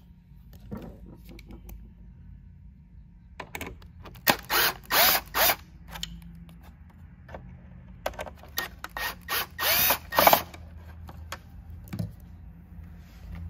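Power screwdriver backing two screws out of a plastic tow-mirror housing: two runs of short spinning pulses, about four seconds in and again about nine seconds in.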